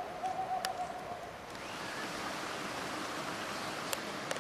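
Steady rushing of running water, growing slightly fuller about a second and a half in. A faint wavering tone is heard in the first second or so, along with a few light clicks.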